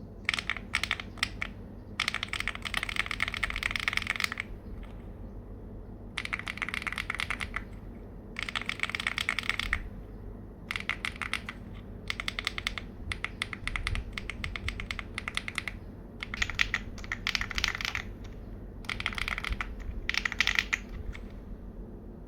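Typing on a mechanical keyboard fitted with PBT double-shot pudding keycaps: rapid runs of key clacks in bursts of a second or two, with short pauses between.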